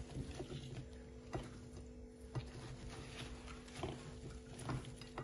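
Hands mixing raw meat, okra, tomato wedges and garlic in a glass baking dish: soft squelching and rustling, with a few light clicks as pieces knock against the glass, over a steady low hum.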